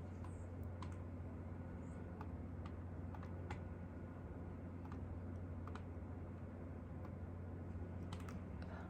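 Faint, irregular small clicks, roughly one a second, over a steady low hum.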